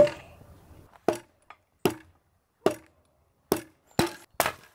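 Hammer blows on an old wooden beam: seven sharp knocks, each with a brief ring. They come about one every 0.8 seconds at first and closer together near the end.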